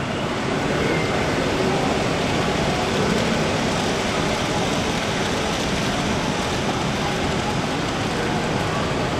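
Steady, even running noise of a large H0 model railway layout in operation, many small model trains rolling on the track, blended into the hall's background.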